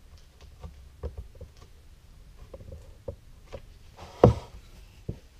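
Wooden boards and small hand tools being handled on a workbench: scattered light clicks and knocks, with one loud wooden knock about four seconds in.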